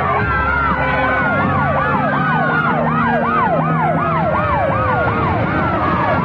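Several ambulance sirens sounding at once. One runs a fast yelp, rising and falling about three times a second, over another that glides slowly down in pitch.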